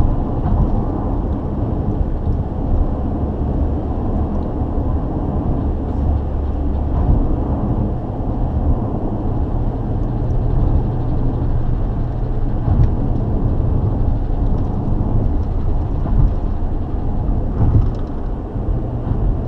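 Steady low rumble of road and engine noise inside a car cruising on an expressway.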